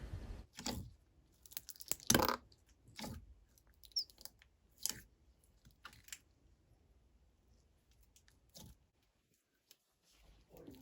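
Thick clear slime being squeezed and stretched by hand, making irregular sticky clicks and crackles. Most of them fall in the first six seconds, the loudest about two seconds in.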